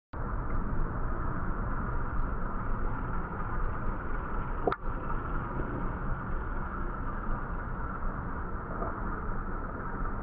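Steady low rumbling background noise, with a single sharp click about halfway through.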